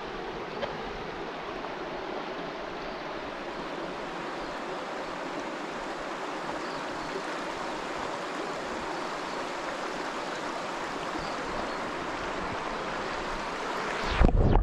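Shallow stream running over a stony riffle: a steady rushing babble of water. Near the end the sound turns to a loud, muffled low rumble as the microphone is dipped into the water.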